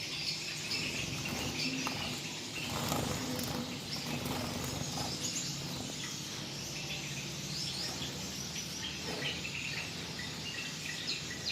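A flock of caged Gouldian finches chirping, with short, high calls scattered throughout over a low steady hum.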